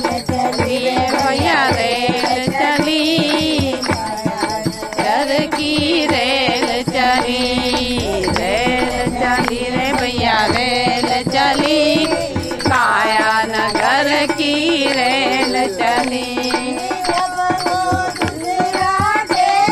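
Group of women singing a Hindi devotional bhajan in unison, accompanied by a hand-played dholak and hand clapping in a steady rhythm.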